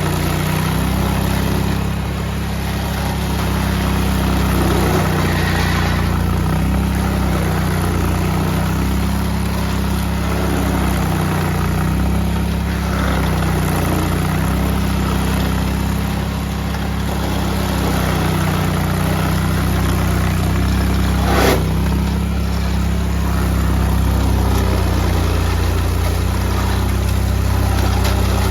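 Engine of a heavy site machine running steadily with small changes in load, and a single sharp knock about three-quarters of the way through.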